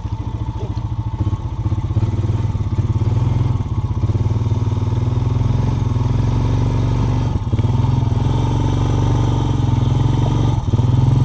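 Engine of an off-road vehicle running steadily as it drives a rough trail, with a couple of brief knocks from the ride.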